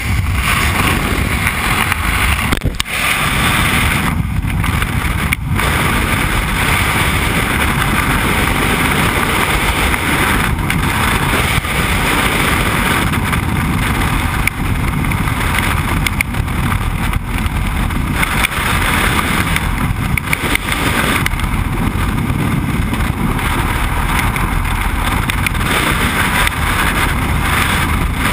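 Loud, steady rush of freefall wind buffeting the camera's microphone during a skydive, with a brief dip about three seconds in.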